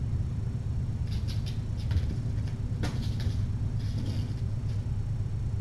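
Steady low background hum, with scattered light scratching and pattering from kittens scampering and wrestling on the floor and bedding.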